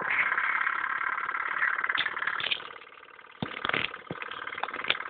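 Electric desk fan running with a fast, buzzing rattle that drops away about three seconds in, followed by a few sharp knocks.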